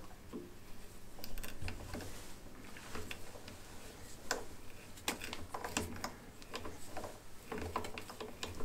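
M4 tap being turned by hand into a drilled hole in a metal bearing block, giving irregular small clicks and ticks as it cuts the thread.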